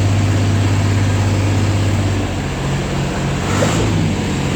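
Engine running steadily with a low hum; its note drops and becomes uneven about two seconds in.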